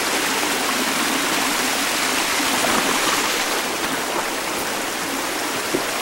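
Small canyon stream and waterfall, water rushing and splashing over rocks in a steady, even hiss.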